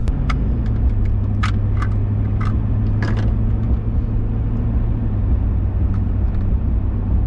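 Steady low road and engine rumble inside a moving pickup truck's cab, with a few light clicks and taps in the first three seconds.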